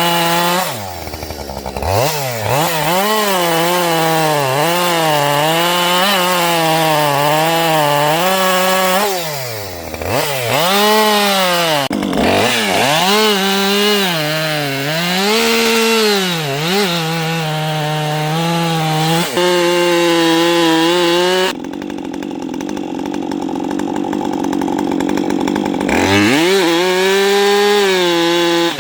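Stihl two-stroke chainsaw cutting through ash wood, its engine pitch rising and falling repeatedly as it bogs under load and revs free. Past the middle, the engine tone stops for several seconds and a steady rushing noise takes its place before the saw comes back.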